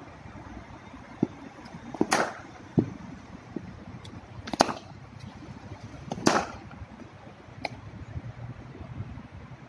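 Sharp cracks of cricket bats striking balls in practice nets: three loud ones about two, four and a half and six seconds in, with a few fainter knocks between them.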